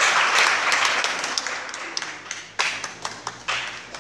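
Audience applauding: a dense patter of many hands clapping, loudest at first and thinning out over the next few seconds.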